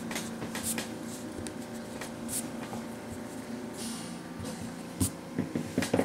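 Graphite pencil and eraser working on sketch paper on a table: soft rubbing and scratching with a few light taps, the sharpest two near the end, over a steady low hum.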